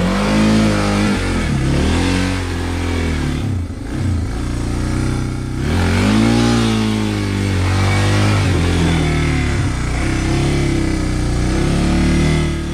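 Suzuki DR650's single-cylinder four-stroke engine under way on the trail, revving up and dropping back several times as the throttle is opened and closed.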